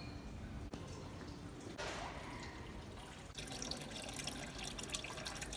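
Water running from a small fountain spout and splashing, a fizzing trickle that comes in about halfway through.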